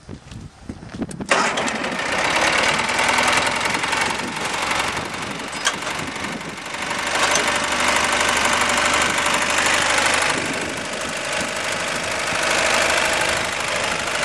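Kohler Magnum 20 opposed-twin air-cooled engine of a 1989 Ariens GT20 garden tractor starting: it catches about a second in and then runs steadily.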